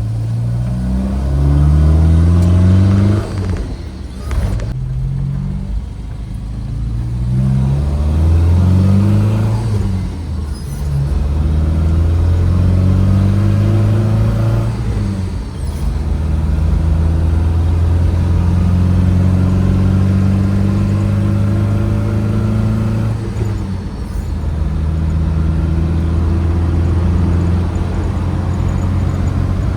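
1966 Volvo 122's B18 1.8-litre four-cylinder engine under way, rising in pitch as it pulls through the gears with a drop at each shift for the first fifteen seconds or so, then holding a steady note at cruising speed.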